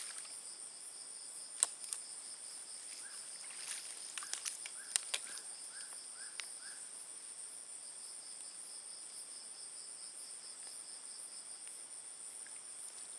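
Steady, pulsing high-pitched chorus of night insects, with a few sharp clicks between about one and a half and five seconds in.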